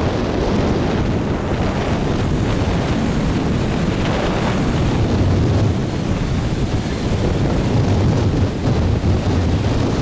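Steady wind rumbling on the microphone over small lake waves washing and breaking against shoreline rocks.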